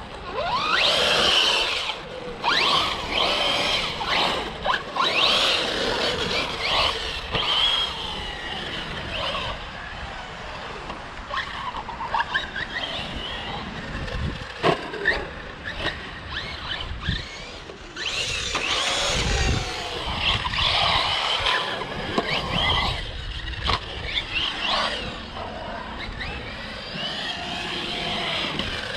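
Electric RC car being driven hard, its motor whine rising and falling with the throttle, with scattered clicks and knocks.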